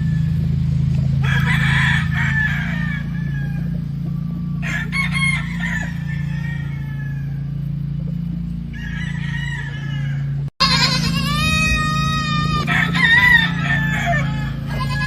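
Roosters crowing over and over, one drawn-out crow after another, with the loudest and clearest crow after a short break about two-thirds of the way through. A steady low hum runs underneath.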